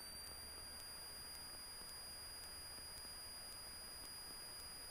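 Faint, steady, high-pitched electrical whine with a low hum underneath on a Cessna 172's cockpit intercom audio.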